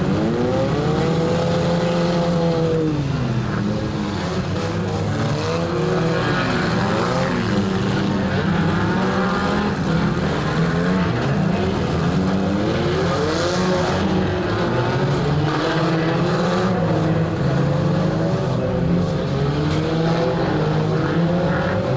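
Several four-cylinder hatchback engines running together, revving up and down over one another as the cars manoeuvre and push.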